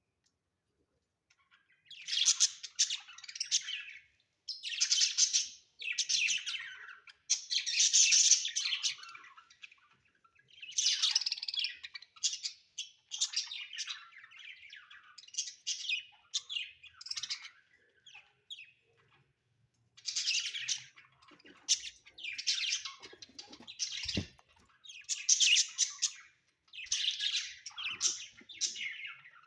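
Budgerigars chirping and chattering in repeated bursts of about a second each, with a short quiet spell about two-thirds of the way through.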